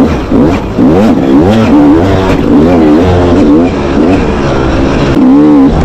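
Dirt bike engine revving up and down over and over as the throttle is worked, its pitch rising and falling about twice a second.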